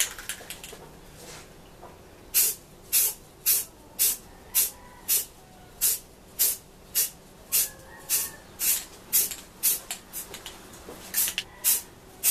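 Aerosol spray paint can spraying in short, even bursts of hiss, about two a second, starting a couple of seconds in: light passes of a flat tan base coat.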